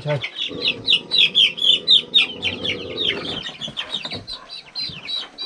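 Young chickens peeping over and over, a quick run of short, high, falling calls as they are handled in a plastic crate.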